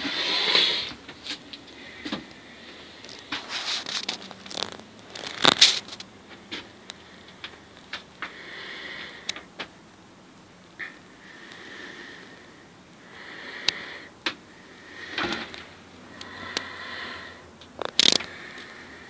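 Scattered clicks and knocks, two of them sharper, from a handheld phone being moved about, with several soft breaths close to the microphone.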